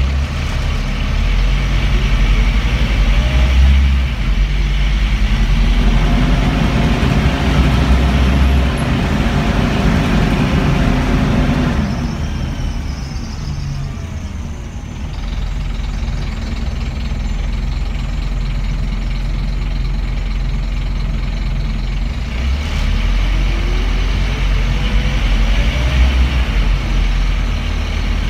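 Scania N230UB bus heard from inside the saloon: a steady low engine rumble with a loud constant roar over it, typical of a cooling fan stuck running flat out because of a broken fan sensor. A thin rising whine climbs three times as the bus picks up speed.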